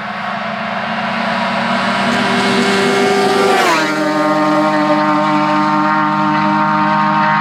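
Yamaha Apex snowmobile's four-cylinder four-stroke engine with an aftermarket Bender exhaust running flat out on a high-speed run. It grows louder as the sled approaches, then its pitch drops sharply as it passes, about halfway through.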